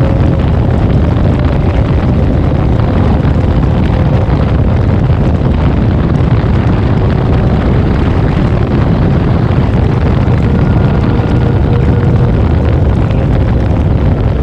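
Honda CBR650R's inline-four engine, fitted with an aftermarket JP exhaust, running steadily while riding, with wind rushing over the microphone.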